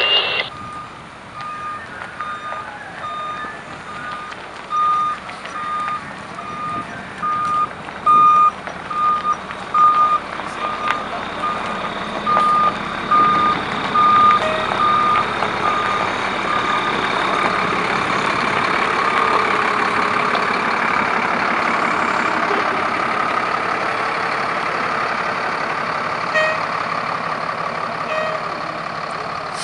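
A fire truck's reversing alarm beeping steadily as it backs up, one short tone repeated over and over. About halfway through the beeping stops and a truck engine's steady running grows louder and holds.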